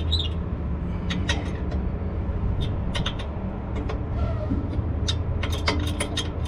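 A steel wrench clicking and clinking on the mounting nuts of a truck air spring as they are turned, in scattered sharp metal clicks that come more thickly near the end, over a steady low hum.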